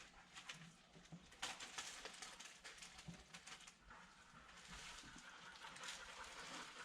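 Near silence: faint room tone with a soft hiss and a few light clicks about a second and a half in.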